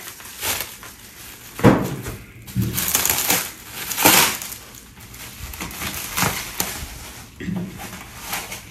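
Plastic stretch wrap being pulled off and crinkled by hand, an irregular rustling with sharper crackles about two seconds and four seconds in.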